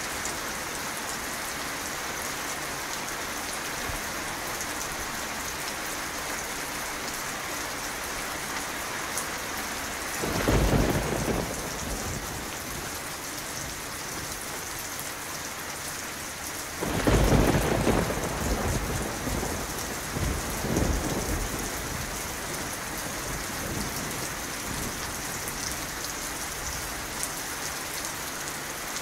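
Steady rain falling, with two low rolls of thunder: one about a third of the way in, and a louder one a little past halfway that trails off in a further smaller rumble.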